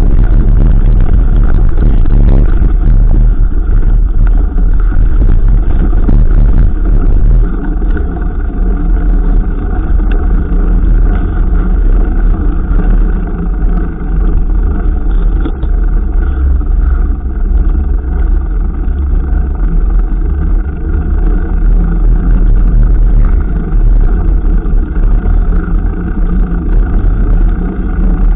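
Loud, steady wind rush and rumble on the camera microphone of a mountain bike being ridden, heaviest in the low end with no break.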